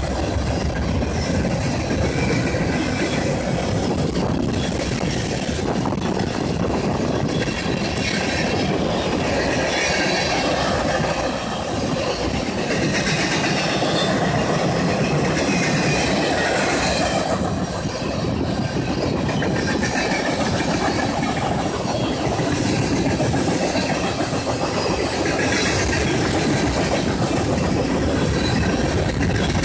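Freight cars of a long mixed manifest train, tank cars and covered hoppers, rolling past close by: a steady, continuous noise of steel wheels running on the rails.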